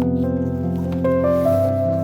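Background music with held notes that change pitch now and then, with a few faint light taps over it.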